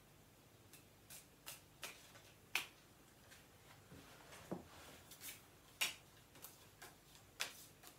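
Playing cards being handled and dealt onto a tabletop: a string of light, irregular snaps and slaps, the sharpest about two and a half seconds in and again near six seconds in.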